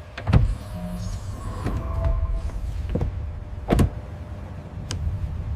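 Mechanical sounds: a low rumble broken by about six sharp clanks at irregular intervals, with short electric-motor whirs about one and two seconds in.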